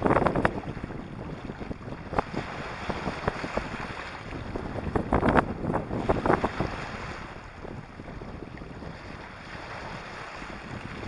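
Small waves washing in over pebbles and rocks at the water's edge, swelling louder at the start and again about five seconds in, with wind on the microphone.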